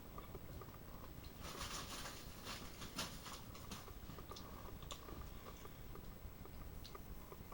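A person chewing and biting food close to the microphone, with a cluster of crackling clicks from about a second and a half in, loudest around three seconds, and scattered small ticks otherwise.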